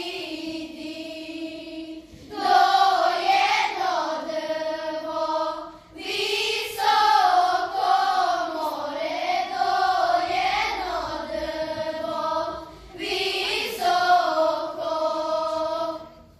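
Children's choir singing, in phrases with short breaks between them. The last phrase stops just before the end.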